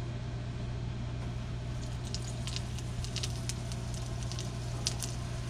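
Egg roll frying in hot canola oil in a frying pan: sparse crackling and popping starts about two seconds in and grows busier toward the end. A steady low hum runs underneath throughout.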